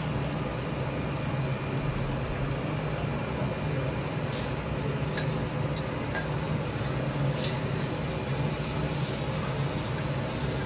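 Wagyu steak sizzling steadily on a teppanyaki griddle, over a constant low hum, with a few light clicks of the metal spatulas against the steel plate.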